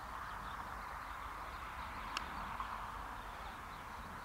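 Faint, steady outdoor background hiss, with one short click about two seconds in. No motor is heard: the electric RC plane is gliding with its motor cut.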